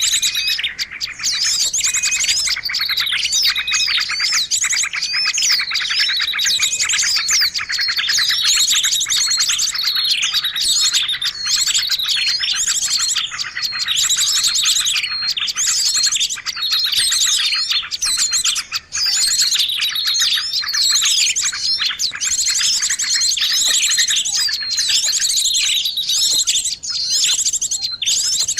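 Several songbirds singing at once in a dense, unbroken chorus of fast rattling trills and quick downward-sweeping chirps.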